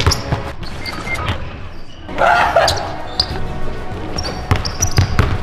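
Basketball bouncing, a few irregular bounces, with a brief noisy burst about two seconds in and background music underneath.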